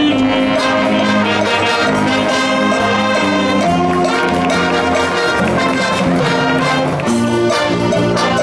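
Brass band music playing continuously, a melody of held notes.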